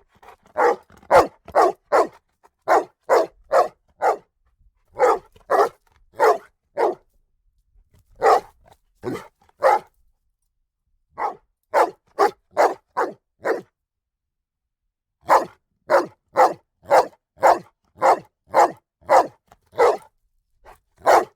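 A dog barking loudly and repeatedly, in runs of several barks at about two a second separated by short pauses, with a longer pause about two-thirds of the way through.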